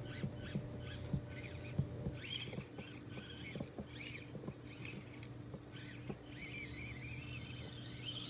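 Axial SCX24 1/24-scale RC crawler's tyres clicking and knocking on wooden logs as it climbs over a log pile, over a steady low hum. High warbling chirps come in about two seconds in and again near the end.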